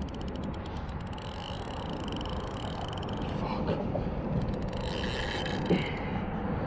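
Steady rumble of road traffic on a bridge, with a quick run of fine ticks in the first second.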